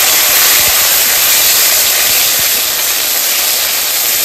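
Ginger and green chilli paste frying in hot oil in a karai, stirred with a spatula: a loud, steady sizzling hiss.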